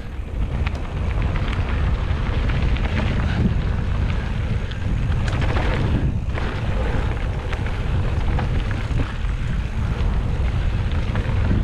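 Wind buffeting the action camera's microphone as a mountain bike rides along a dirt trail, with a steady low rumble and frequent small knocks and rattles from the bike going over the bumps. The noise builds up at the start as the bike picks up speed.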